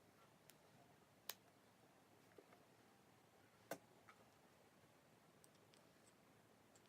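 Slime mixed with crushed corn-puff snack being handled, giving a few faint, sharp clicks and pops, the two clearest about a second in and near the middle.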